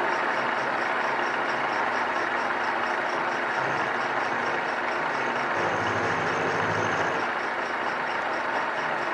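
Vertical milling machine running, its end mill facing off the end of a short metal tube standoff to bring it to exact length. A steady machining noise with a faint rapid ticking.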